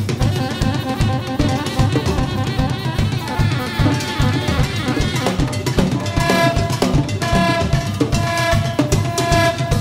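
Instrumental music for drum kit, hand percussion and saxophone. The drums and percussion play a dense, busy rhythm, and sustained saxophone notes come in about six seconds in.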